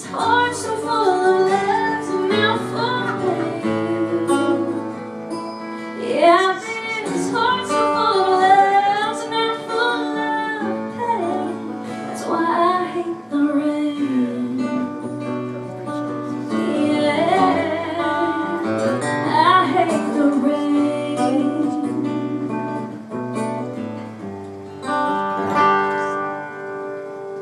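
Woman singing a slow song over acoustic guitar, her voice gliding through long held notes and runs without clear words.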